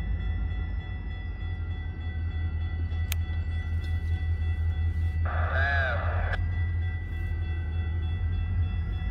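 Diesel locomotive engine running with a steady low rumble as a slow work train approaches. A brief wavering call, lasting about a second, sounds once about five seconds in.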